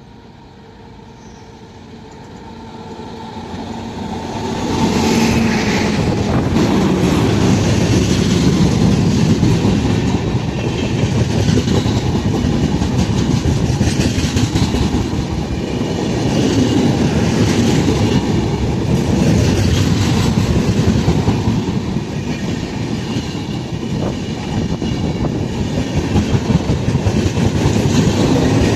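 A train approaching fast, growing steadily louder over the first five seconds, then running past for the rest of the time with its wheels clattering rhythmically over the rail joints.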